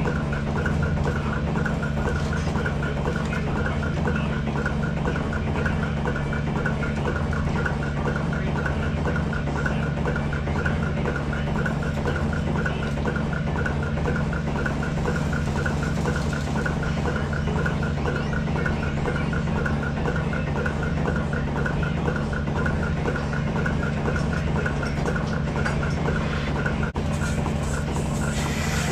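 Milking system running: a steady machine drone from the vacuum pump, with the regular pulsing of the pulsators on the milking units attached to the cows.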